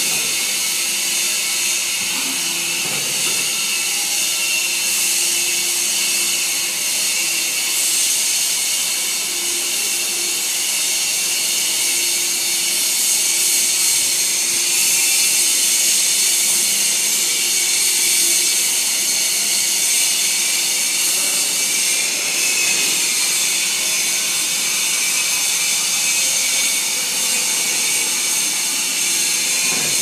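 Hydraulic metal swarf baling press running: a steady machine hum under a strong high hiss, holding an even level with no distinct strokes or impacts.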